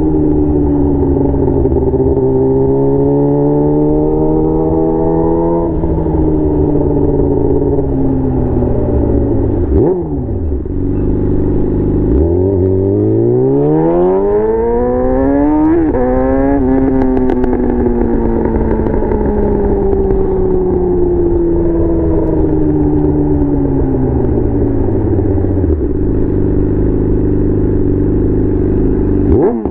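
Yamaha R6 inline-four sport-bike engine through a Leo Vince aftermarket exhaust under riding load. The revs rise and drop with the throttle, with a sudden pitch drop at each gearshift. About halfway through comes a hard pull with the pitch climbing steeply before a shift, followed by a long easing-off, and there is a quick dip and blip of revs near ten seconds in and again at the end.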